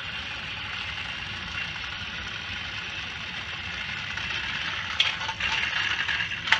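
Motorized Thomas & Friends toy train engines whirring steadily as they run along plastic track, then a few sharp plastic clacks from about five seconds in as the trains crash together on the ramp and a truck tips off.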